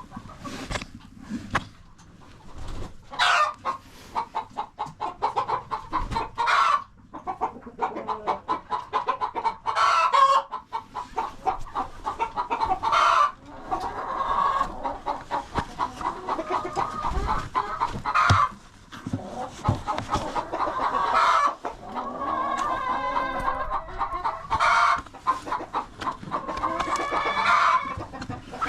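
Chickens clucking rapidly and continuously, with short loud squawks every few seconds.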